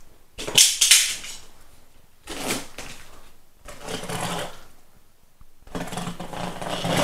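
A box of packaged chargers and adapters being opened and rummaged through. Four bursts of rustling and scraping of cardboard and packaging, the loudest about a second in.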